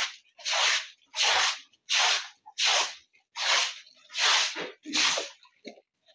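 A stiff broom sweeping a concrete pig-pen floor in steady, even strokes, about eight swishes in a row, clearing away accumulated pig manure.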